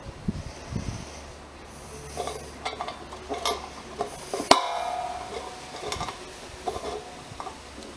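Metal rod tool scraping and clicking inside an aluminium beer keg's valve as it is pushed and turned to depress the valve's safety locking pin. One sharp metallic clink about four and a half seconds in rings briefly.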